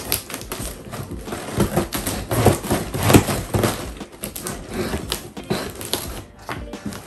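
A dagger blade sawing and slicing through packing tape and cardboard along a box's seam, in a run of irregular scraping, ripping strokes.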